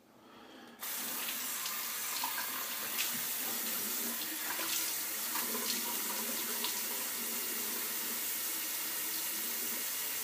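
Bathroom sink tap turned on about a second in and left running, water pouring steadily into the basin.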